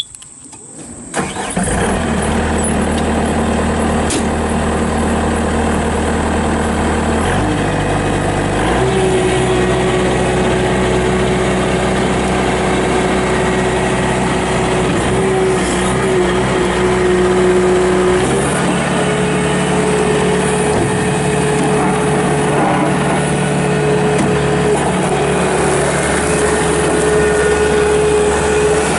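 2007 Bobcat S330 skid steer loader's diesel engine starting about a second in, then running steadily. The engine note steps up at about 7 to 9 seconds and shifts again near 18 seconds.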